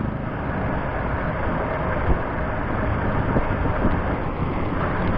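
Steady rushing noise of wind on the microphone and tyres on the road while riding a bicycle.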